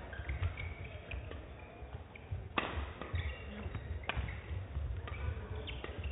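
Badminton rackets striking a shuttlecock during a doubles rally: a series of sharp, short hits, the clearest about two and a half, four and five and a half seconds in.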